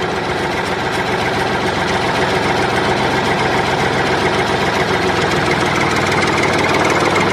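Diesel tractor engine idling steadily, just after starting.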